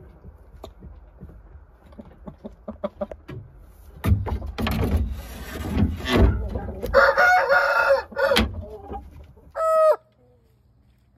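Shamo rooster crowing: a loud, rough, drawn-out crow through the middle, then a short clear call that cuts off suddenly near the end. Before it come light scattered taps, like pecking in the litter.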